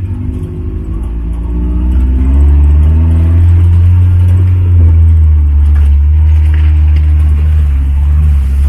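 Off-road jeep's engine running under load, getting louder about two seconds in, its pitch rising and falling as it revs.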